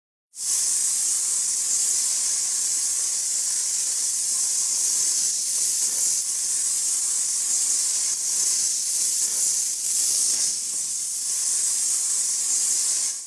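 A steady, high-pitched hiss that starts abruptly and cuts off abruptly.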